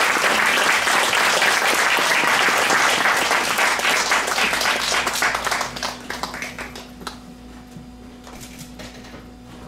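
Audience applauding at the end of a performance, the clapping thinning out about six seconds in to a few last scattered claps.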